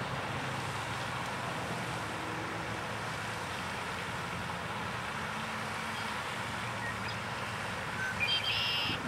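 A male red-winged blackbird sings once near the end: a short clear note followed by a buzzy trill lasting under a second. Under it runs a steady outdoor hiss with a low rumble.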